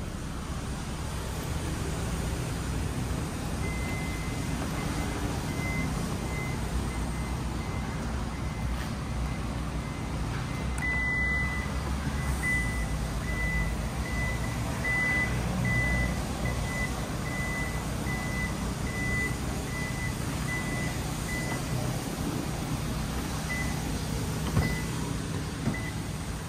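Toyota Alphard's power tailgate warning buzzer giving a high, repeated beep over a steady low hum.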